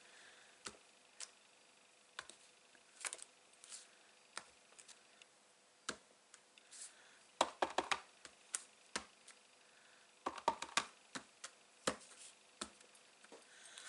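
Irregular light taps and clicks of a stamp being inked on an ink pad and pressed onto card, coming in small clusters.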